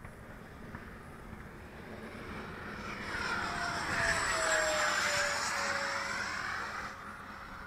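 Freewing MiG-21 electric ducted-fan model jet making a fly-by: its fan whine swells to a peak about four to five seconds in, drops in pitch as it passes, and fades.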